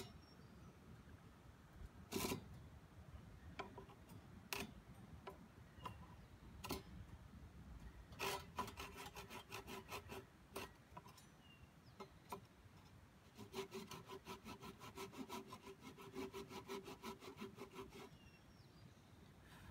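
A hand tool rasping along a pressure-treated pine board: a few separate strokes, then a run of quick strokes, about five a second, and after a short pause a longer run of the same.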